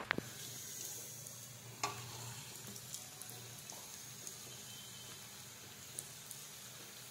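Green sorghum ponk patties deep-frying in hot oil in a pan: a steady sizzle with fine crackling, broken by a few light clicks.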